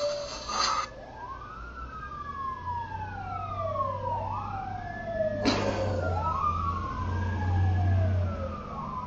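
Emergency-vehicle siren wailing, each cycle rising quickly and then falling away slowly, over and over about every two seconds, with a low hum under it and a single sharp knock about halfway through.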